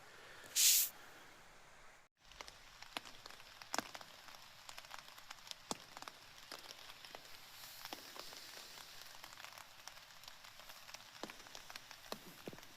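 Light rain: scattered drops tapping irregularly over a faint hiss. A short sharp hiss comes under a second in, just before a brief break in the sound.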